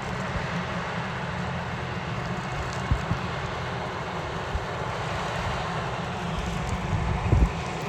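Large farm tractor's diesel engine running steadily under load as it pulls an air drill, with wind noise on the microphone and a few low gusty thumps near the end.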